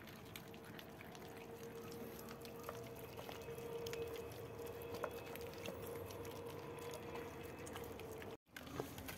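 A litter of puppies eating from shared bowls: many small wet chewing and lapping clicks over a faint steady hum, broken by a brief dropout near the end.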